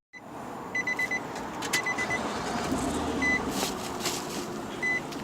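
Diagnostic scan tool giving short, high beeps, a quick run of them about a second in and single ones later, as its buttons are pressed. Under them is the steady hum of the 2007 Nissan Quest's 3.5-litre V6 running with a random misfire.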